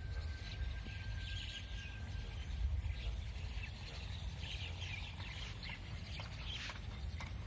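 Rural outdoor ambience: scattered short bird calls over a steady low rumble.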